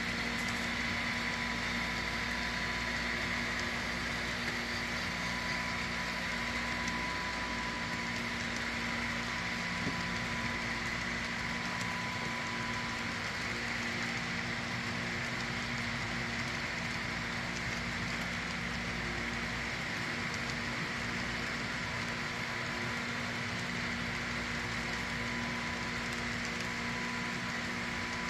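Model freight train's cars rolling steadily along the layout track: a continuous rolling noise of many small wheels on the rails, with a steady hum beneath it.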